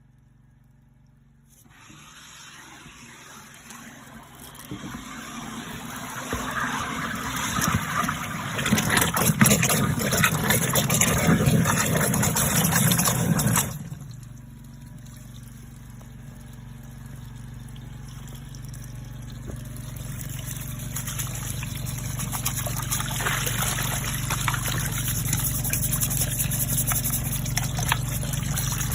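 Water splashing and gushing in a drain catch basin under a high-pressure drain-cleaning jet. The water builds up, then cuts off abruptly about halfway through. After that a steady low pump hum runs on with water flowing, slowly getting louder.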